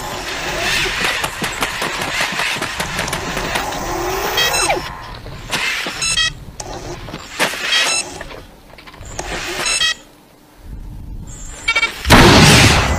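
Humanoid robot's servos and actuators whirring and clanking as it moves and aims, with short clicks and a pitch-gliding whine, then a single very loud rifle shot about twelve seconds in.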